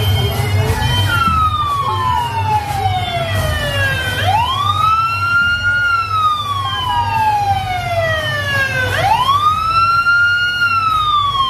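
Fire engine siren on a slow wail. Twice, the pitch sweeps quickly up, holds high, then slides slowly down over about three seconds. The low, steady running of the trucks' engines sits underneath.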